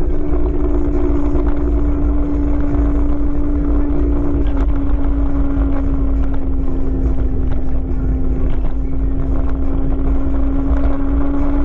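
Kaabo Wolf King GT electric scooter's hub motors whining at a steady pitch while cruising, the pitch sagging slightly and rising again near the end. Heavy wind rumble on the camera microphone runs under it.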